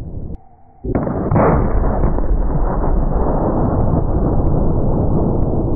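Deep boom of a black-powder punt gun firing a 1-pound ball, heard as a long, low rumble. The sound cuts out briefly just under a second in, then comes back with a sharp new boom that swells and rumbles on steadily.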